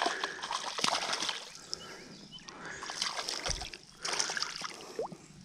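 A small hooked fish splashing and thrashing at the water's surface in several irregular bursts as it is reeled to the bank, with a low thump about three and a half seconds in.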